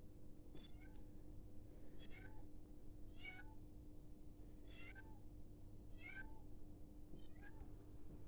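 A kitten meowing faintly and over and over, about six high meows a little over a second apart, over a steady low hum.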